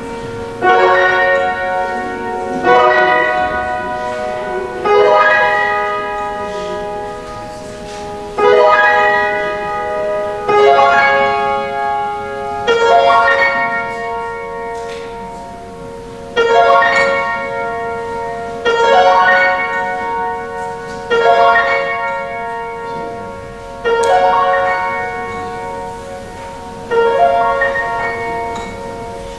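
Slow instrumental music: a chord struck about every two to three seconds, each left to ring and fade before the next.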